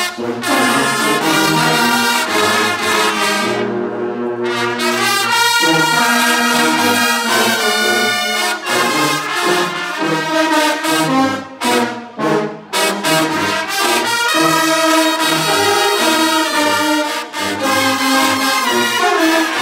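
A Bersaglieri brass fanfare of trumpets, euphoniums and tubas playing a tune together, led by a conductor. The high brass drops out briefly about four seconds in while the low brass carries on, and there are a few short breaks between phrases around the middle.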